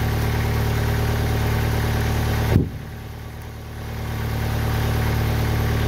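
TimberKing 2020 band sawmill's engine running steadily between cuts. About two and a half seconds in there is a sharp knock, after which the sound drops away for about a second and a half and then builds back up.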